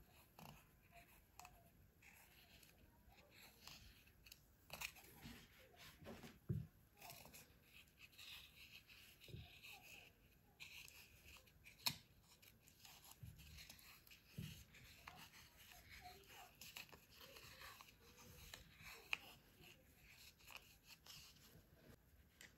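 Near silence with faint handling sounds: braided cord rustling as it is wound and pressed onto a glued cardboard cut-out, with a few soft clicks and taps.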